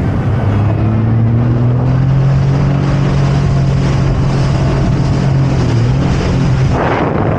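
Jet ski engine pulling away and then running steadily at speed, a strong low hum that rises a little in the first couple of seconds.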